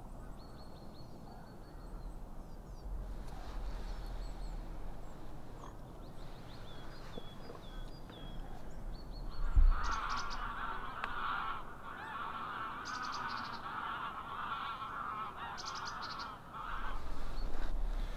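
A flock of geese honking, starting about halfway through and going on for about seven seconds, with a single low thump just as it begins. Before that, only thin high calls of a small bird over a low wind rumble.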